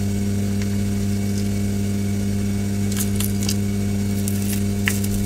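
Steady hum of a hot air rework gun's blower running, with a few light clicks and scrapes of a flat tool prying an adhesive-backed rubber cover off the speaker's plastic housing about three seconds in and again near the end.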